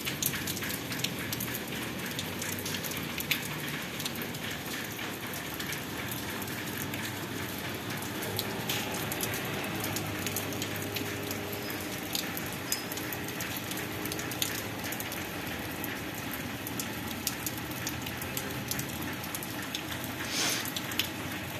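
Steady light rain falling on a stone-paved street, a dense patter of small drops with rainwater running over the ground.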